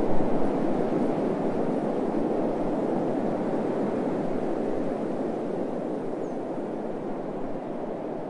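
Steady wind ambience: a dense rushing noise with its weight low in the range, slowly easing toward the end.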